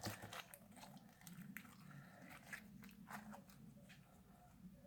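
Near silence with faint, scattered sticky clicks and squelches of fluffy shaving-foam slime being twisted by hand.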